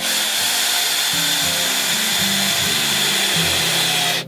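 A power tool running steadily at full speed with a high whine, starting and stopping abruptly, over background music.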